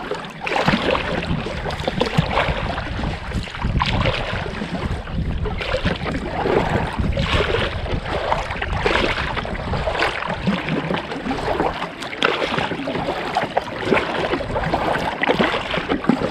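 Double-bladed kayak paddle dipping and splashing in the water, about one stroke a second, over a steady low rumble.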